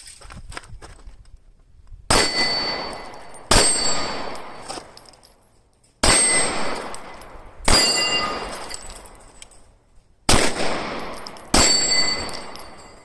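SIG Sauer P320 X Carry pistol firing six shots in three pairs: two shots about a second and a half apart, then a pause of a few seconds before the next pair. Each shot has a long fading echo with a brief ringing tone in its tail.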